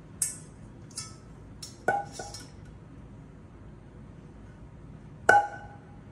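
Metal saucepan clinking against a stainless steel stand-mixer bowl as it is tipped out into the bowl: a few sharp clicks and scrapes, then metallic knocks with a brief ring, the loudest about five seconds in.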